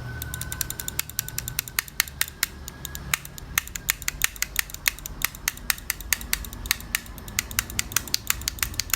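Computer mouse buttons being clicked over and over, a quick uneven run of sharp clicks, several a second.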